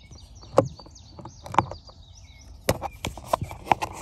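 Scattered sharp clicks and knocks, about six of them, from a screwdriver and small door-panel screws being handled and set down, with birds chirping faintly in the background.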